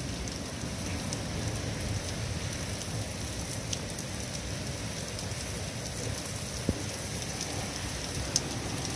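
Heavy rain pouring steadily onto paving, grass and foliage, a dense even hiss, with a few sharp ticks near the middle and end.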